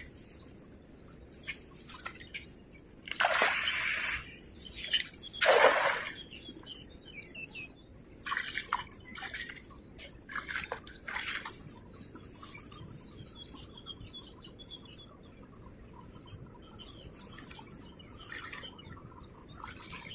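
Water splashing in a river, loudest twice in the first six seconds with a few smaller splashes after, over insects chirping in steady repeated pulses.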